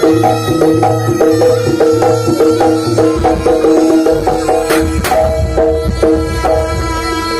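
Javanese jaranan ensemble music: pitched metal percussion plays a fast repeating figure over drums and low bass notes. Two sharp cracks ring out about five seconds in.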